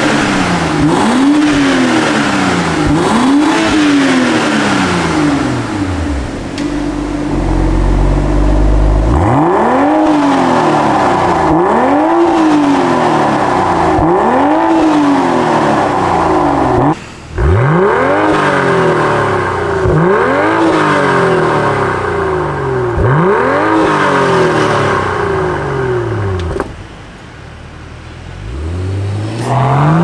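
BMW M340i's B58 turbocharged inline-six revved in repeated blips, roughly one every second or two, heard at the tailpipe through a Fi Exhaust valvetronic catback. The first revs are with the exhaust valves closed; after a lull with a deep low rumble about a third of the way in, the later revs are with the valves open and carry more upper-pitch rasp. A brief dropout near the middle and a quieter stretch near the end.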